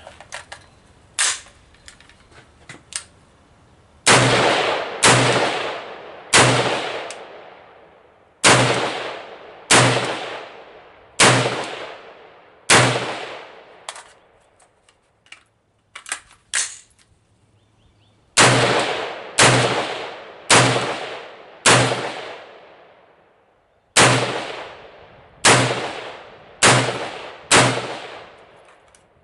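AR-15 rifle fired in a steady string of single shots, about fifteen in all, roughly one a second to a second and a half apart, each echoing out for about a second. A pause of several seconds in the middle splits the shots into two groups, with a few light clicks near the start and during the pause.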